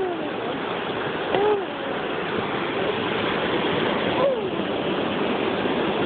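A little boy's short vocal sound effects, three glides that fall in pitch, made to go with his stomping steps, over a steady rushing noise.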